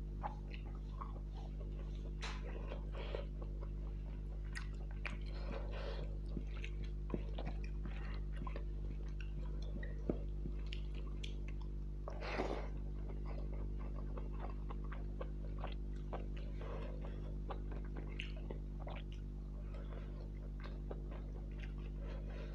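A person chewing and eating rice and fish curry, with irregular wet mouth clicks and smacks, over a steady low electrical hum.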